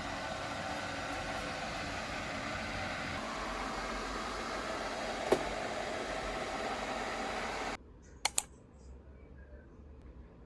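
Steady mechanical whirring with a light clatter, which stops abruptly about eight seconds in; then two quick clicks.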